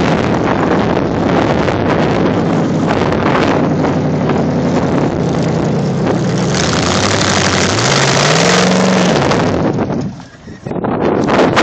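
1973 Jeep Commando's engine running hard under load as it climbs a sand berm on 38-inch Super Swamper tyres, with wind buffeting the microphone. About eight seconds in the engine note rises sharply and falls back, and a little after ten seconds the sound briefly drops away.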